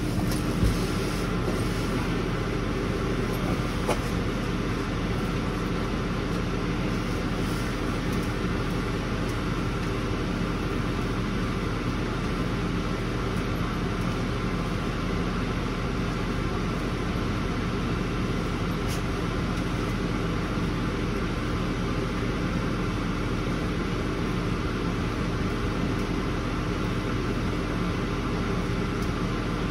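Steady machine drone with a constant low hum, unchanging throughout, with a few faint clicks near the start.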